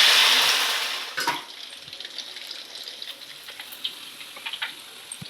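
Cooking oil poured from a bottle in a hissing stream that stops about a second in, followed by a knock and faint clicks of kitchen utensils.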